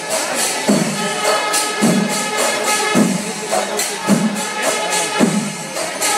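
Kerala temple percussion ensemble (chenda melam) playing: a heavy drum stroke lands about once a second over fast, continuous ilathalam cymbal clashing, with a steady held tone running through.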